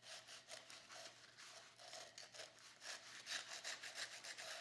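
Small steel C-clamps' threaded screws being turned by hand to tighten them: a faint, dry rasping in quick repeated strokes.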